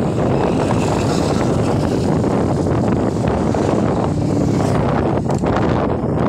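Loud, steady wind rumble buffeting the microphone of a cyclist riding a road bike at speed.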